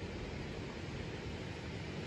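Steady rushing noise of wind on the microphone over flowing river water, with no distinct events.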